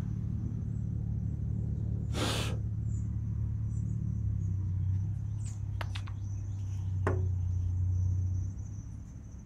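A low, steady mechanical hum, like a motor or engine running, that drops slightly in pitch about four seconds in and fades out near the end. There is a short rustling rush about two seconds in and a few light clicks later.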